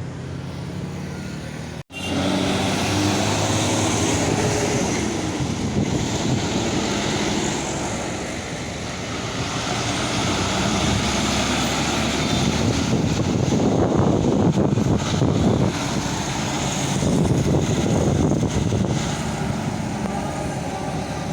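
Heavy roadside traffic passing close by: diesel truck engines and tyre noise, swelling louder as vehicles go past about halfway through and again later. A brief dropout about two seconds in.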